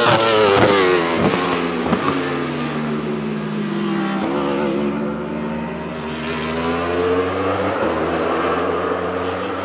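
Wolf GB08 Thunder race car's 1,000 cc Aprilia RSV4 V4 engine passing close at speed with its pitch falling. It then drops down through the gears under braking, with short sharp blips about one and two seconds in, and accelerates away again, its pitch rising through a gear change as it goes off into the distance.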